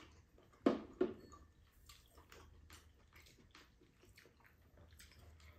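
Quiet eating sounds at a table: two short, sharp slurps of soup from a spoon about a second in, followed by faint chewing and small scattered clicks of spoons and chopsticks on bowls.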